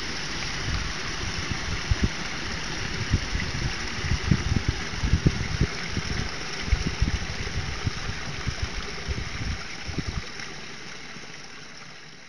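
Water trickling and running into a storm drain grate in a steady hiss, with irregular low thumps and rumbles underneath; the sound fades out near the end.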